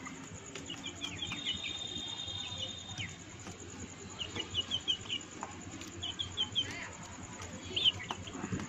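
Young chickens feeding on spinach leaves scattered on a concrete floor: light pecking taps, with high bird chirps in quick runs of four or five notes and one louder call near the end.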